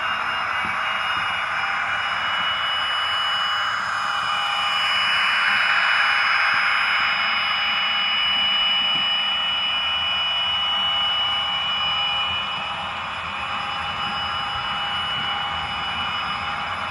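Recorded Paxman Valenta engine sound of a Class 43 HST power car, played by a Hornby TTS sound decoder through the model's small loudspeaker as the train pulls away. A steady high turbocharger whine sits over the engine noise, which swells about four seconds in and eases back near the end. The owner doubts that this turbo sound is true to the real engine.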